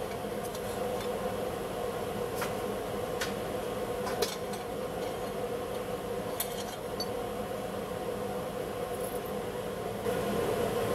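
A few scattered sharp clinks of scrap silver pieces going into a red-hot crucible in a tilt kiln, over a steady hum.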